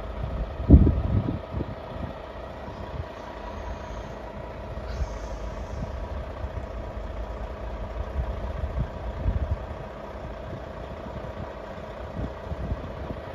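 Level-crossing background with the barriers down: a steady hum of several even tones over a low rumble, and a loud bump about a second in.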